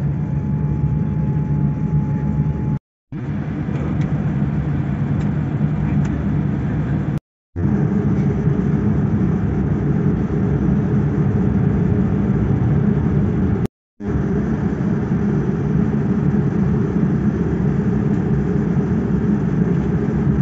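Steady low rumble of engine and airframe noise heard inside a Boeing 787 cabin as the airliner taxis. It drops out abruptly three times for a fraction of a second.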